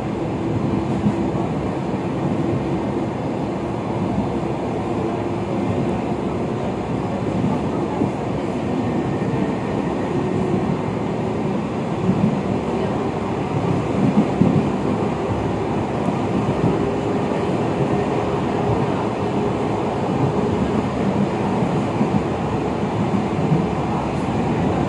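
Suburban electric train (elektrichka) heard from inside the carriage while running: a steady rumble of wheels on the rails with a faint steady whine, and a few slightly louder knocks about halfway through.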